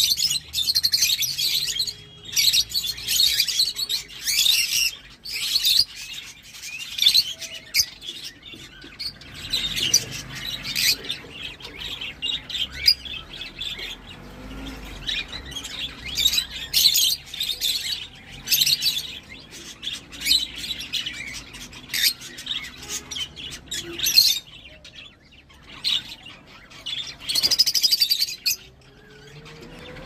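Rosy-faced lovebirds chirping in quick, shrill bursts, several birds calling over one another, with a short lull near the end.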